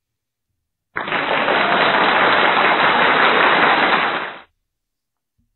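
Slideshow sound effect: a loud burst of dense noise that starts suddenly about a second in and cuts off abruptly about three and a half seconds later.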